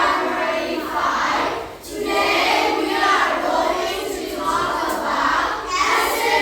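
A group of children's voices chanting together in unison, in loud phrases of about two seconds each.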